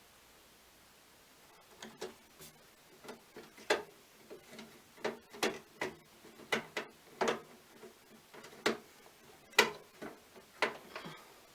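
Screwdriver driving a small motherboard screw into the case: a run of sharp, irregular clicks, about two a second, beginning after a short quiet start.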